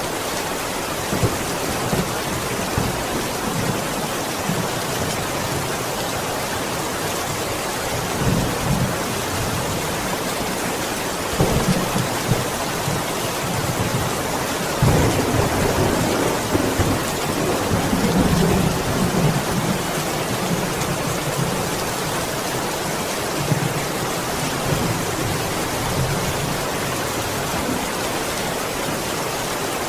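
Steady, heavy rain falling, with low rolls of thunder that swell several times, the strongest about halfway through.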